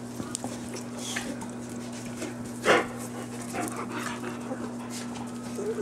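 Boxer puppies panting and moving about, their claws ticking on a tile floor, with one short, loud yelp about halfway through.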